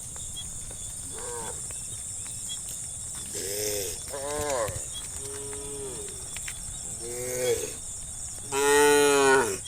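Cows mooing in turn: several short moos, then one longer, louder moo near the end.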